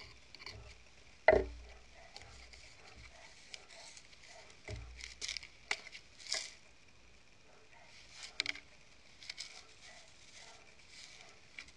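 Plastic food jars handled with rubber-gloved hands and set down on wooden boards: a sharp knock about a second in, a duller thump near the middle, then light clicks and rustles of plastic lids and containers.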